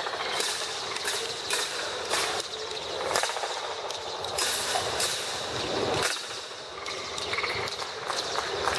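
A string of sharp slaps and clicks at irregular intervals, a few a second, over a steady hiss with a faint high-pitched tone.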